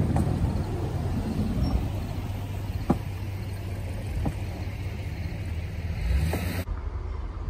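GMC hi-rail pickup truck rolling past on the rails, its engine running with a steady low hum and a few sharp clicks from the truck on the track. The sound cuts off abruptly near the end.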